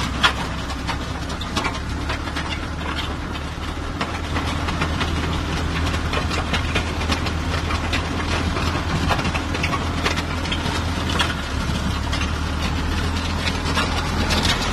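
Backhoe loader's diesel engine running steadily as the machine drives forward, its front loader bucket edge dragged lightly over packed dirt, with scattered crackling and scraping of soil and small stones along the blade.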